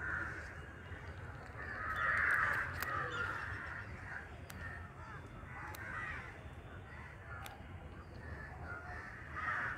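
Crows cawing several times, the loudest about two seconds in, with a few faint sharp clicks between the calls.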